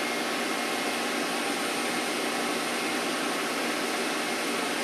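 Electric overhead crane running under pendant control: a steady, even mechanical noise with faint high whine tones.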